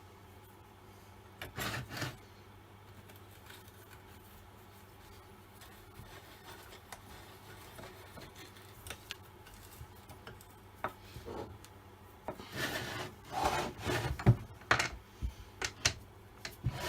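Hands handling the parts of an old chainsaw on a bench: a short knock about two seconds in, then from about twelve seconds a run of clunks and rubbing as the saw and its parts are moved and worked on.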